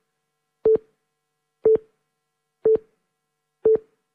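Short electronic beeps of a single steady pitch, one a second, four in all, each with a faint click at its start and end.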